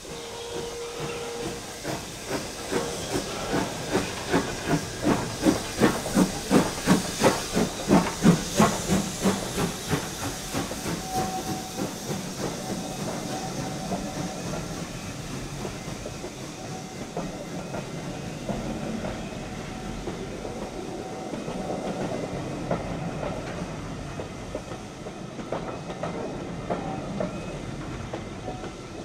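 Steam locomotive pulling away with its train: a short steam whistle note, then loud exhaust chuffs with hissing steam that quicken over several seconds. Then the carriages roll past with a steady rumble and a thin squeal for a few seconds.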